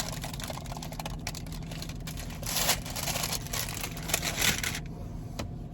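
Someone eating a flaky croissant: irregular crackly crunches and rustles, loudest about two and a half seconds in and again near four and a half seconds, over a steady low hum.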